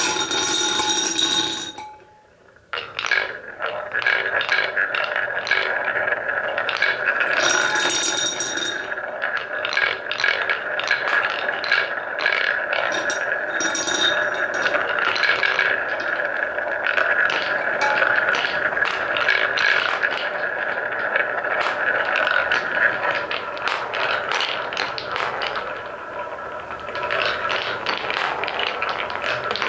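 Wooden balls rolling and spinning around a wooden funnel bowl and along a wooden track: a steady rolling rattle packed with clacks as the balls knock against each other and the wood. It breaks off briefly about two seconds in. A few short ringing tones sound near the start and again around eight and thirteen seconds in.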